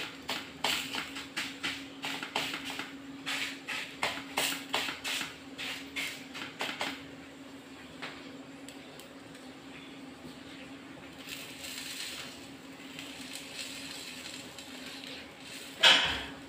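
Banana leaf crackling and crinkling as a hand presses it down over rice-flour roti dough on a hot griddle: a quick, irregular run of crackles for about seven seconds. Then a quieter steady hiss with a faint low hum, and one loud crinkle near the end as the leaf's corner is taken hold of to peel it off.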